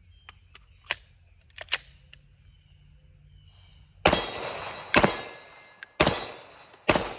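Glock 41 MOS pistol firing .45 ACP handloads: four shots about a second apart, each with a ringing tail, after a few faint clicks in the first few seconds. The pistol cycles the reloads without a jam.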